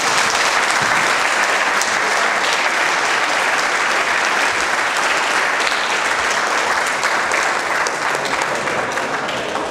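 Audience applauding, a dense steady clatter of clapping hands that eases off near the end.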